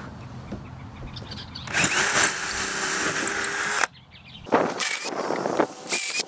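Cordless drill/driver driving a screw through two stacked oak boards: the motor runs at a steady whine for about two seconds, then stops suddenly. A few shorter, quieter sounds follow near the end.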